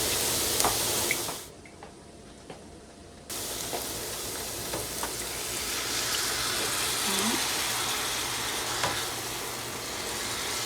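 Onion and mushroom mixture sizzling in a frying pan, cut off after about a second and a half. About two seconds later comes a steady sizzle as beef broth is poured into the hot pan over the flour-coated onions and mushrooms, for the gravy.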